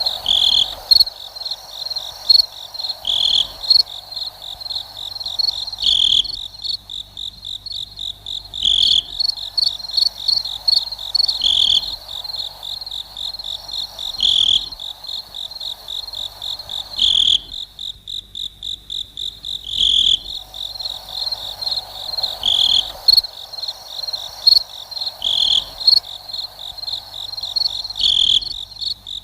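A cricket chirping: a fast, steady train of high-pitched pulses, broken by a longer, louder chirp about every three seconds.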